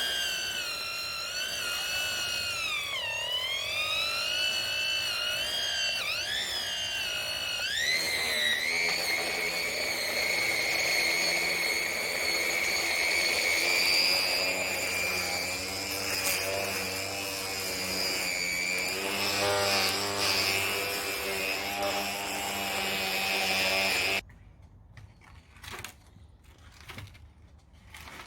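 String trimmer (whippersnipper) running at speed, with its new head fitted: a high whine that dips in pitch twice in the first seven seconds, then holds steady and stops abruptly near the end.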